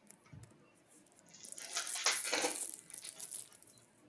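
Trading cards being handled: about two seconds of dry rustling and flicking as cards slide against one another, starting about a second and a half in.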